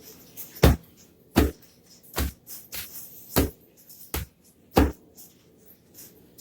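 A series of six sharp knocks or thumps on a hard surface, irregularly spaced, roughly one every three-quarters of a second.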